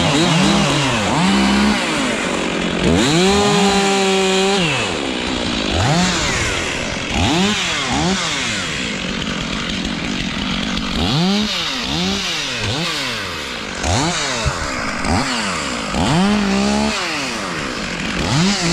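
Two-stroke chainsaw running at high revs while cutting wood, its engine pitch dropping and climbing back again and again as the chain bites and frees.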